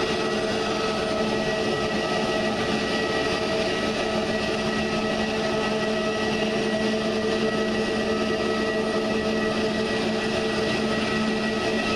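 Airbus A320neo's CFM LEAP-1A turbofans running at idle thrust: a steady whine of several pitched tones over an even rushing hiss as the airliner taxis slowly.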